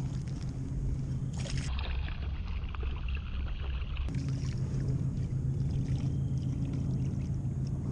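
A steady low engine drone with an even pitch, like a motor running at constant speed.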